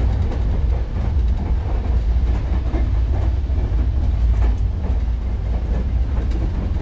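Passenger train running on the tracks: a steady low rumble with irregular rattling and clatter over it.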